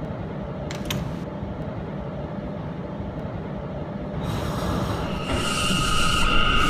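New York City subway train rumbling along the track, with a brief click about a second in. Its sound grows louder after about four seconds, and a second later the wheels begin a steady, high two-tone squeal that holds to the end.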